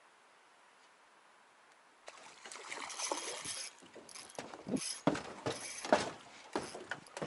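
Near silence for about two seconds, then irregular knocks, rattles and scrapes as a person handles a moored metal boat, gear shifting and clattering against the hull.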